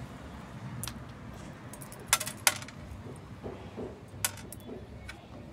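Small river pebbles clicking against each other as they are handled in the hand: scattered sharp clicks, loudest in a quick cluster a little past two seconds in.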